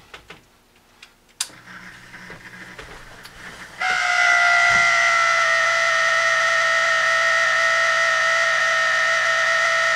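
Hydroponic reservoir water pump running after being switched on at a power strip: a click and a low hum, then about four seconds in a loud, steady, high-pitched whine sets in and holds. The noise is the sign of a fault that has developed in the pump.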